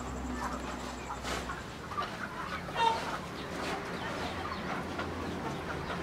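Village chickens clucking, with one louder call about three seconds in.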